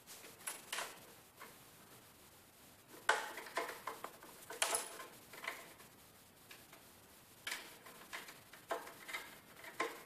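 A parrot's beak pecking and scraping at the plastic shell of a sandwich toaster, making irregular sharp taps and clicks. The loudest knocks come about three seconds in and near the five-second mark.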